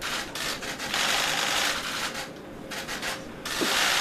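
Rapid clicking of many camera shutters from press photographers, in a dense burst about a second in and again near the end.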